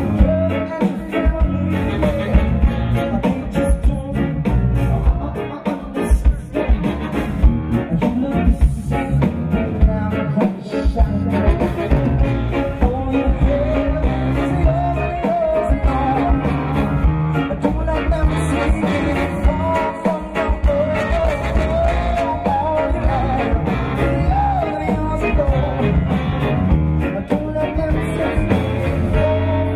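Live band playing a song: a man singing lead over a Nord Electro 3 keyboard, electric guitar, electric bass and drum kit.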